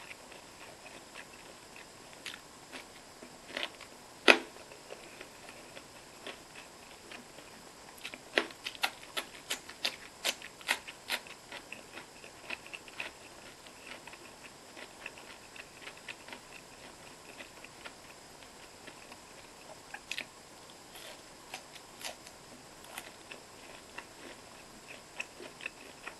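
Close-miked eating sounds: chewing with many short, sharp mouth clicks. The loudest click comes about 4 seconds in, a quick run of clicks follows around 8 to 13 seconds, and more come near the end.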